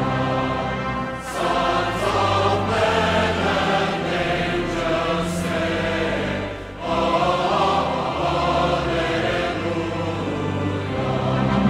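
Background music: a choir singing long held chords, with short breaks between phrases about a second in and again near the middle.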